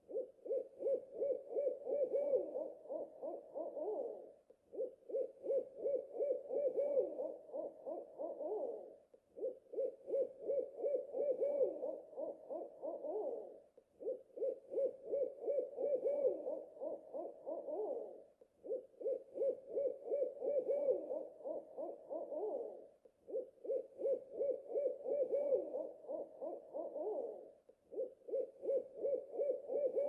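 Owl hooting in runs of quick, closely spaced hoots, each run lasting about four seconds, repeated about every four and a half seconds with short pauses between.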